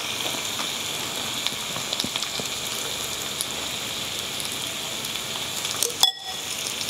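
Thin-sliced beef brisket sizzling on a hot stone tabletop grill: a steady crackling hiss with many small pops. A sharp click about six seconds in, followed by a brief drop in the sizzle.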